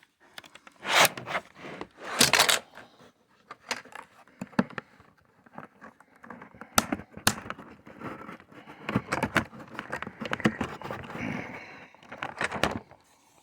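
Irregular clicks and scrapes of hands and tools working at a laptop's plastic bottom case, with two louder scraping rustles in the first few seconds.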